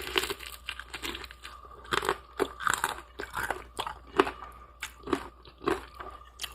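Close-miked crunching and chewing of crispy fried chicken: a run of irregular crunchy chews, roughly two a second.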